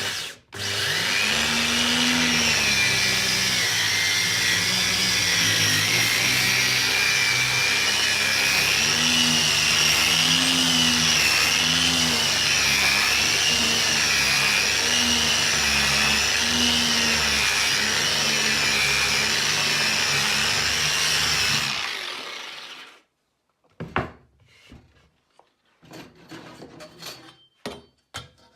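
Homemade sanding machine running under load for about twenty seconds, its pitch wavering as work is pressed against it. It winds down and stops, and a few light knocks follow.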